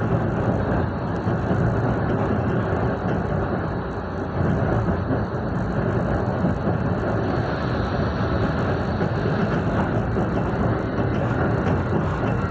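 Tram running along its line, heard from inside the car: a steady rumble of wheels on rails and running gear.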